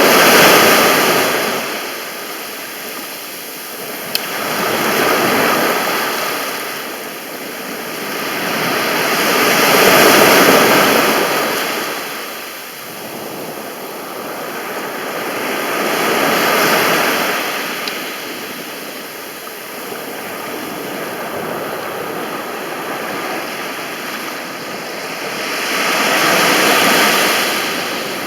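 Mediterranean sea waves breaking and washing up the beach. The surf swells and fades in a slow rhythm, with a louder surge every five to ten seconds.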